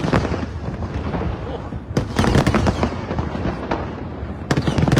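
Fireworks going off in volleys of sharp bangs followed by crackling. The volleys come at the start, about two seconds in and again near the end.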